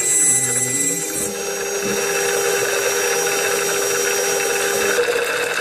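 CNC router spindle with an end mill cutting a water-flooded carbon fiber plate: a steady whine with a cutting hiss. The pitch shifts about a second in and again near the end.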